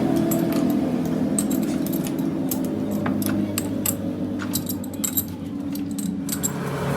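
An engine running steadily, with many light metallic clinks and taps over it.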